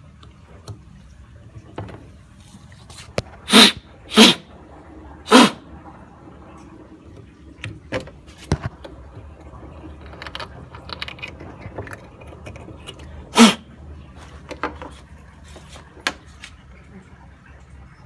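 Short hissing puffs of air, three in quick succession a few seconds in and one more some eight seconds later, among light clicks and knocks of small plastic parts being handled while a clogged washing-machine water inlet filter is cleaned.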